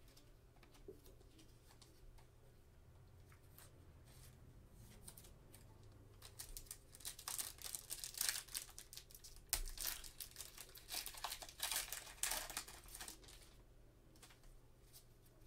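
A trading-card pack wrapper being torn open and crinkled in gloved hands: a few seconds of faint room tone, then a run of crackling and tearing from about six seconds in until near the end, when it falls quiet again.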